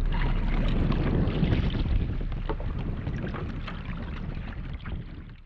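Wind buffeting the microphone over water sloshing against a kayak, with scattered small knocks, fading out toward the end.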